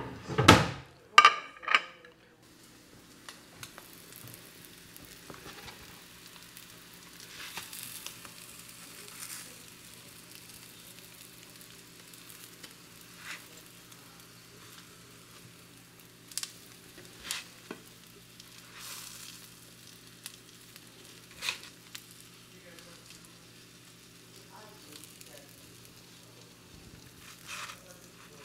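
Crab cakes frying in oil in a pan, a low steady sizzle with occasional sharp clicks of a utensil. A couple of loud, ringing clanks come in the first two seconds.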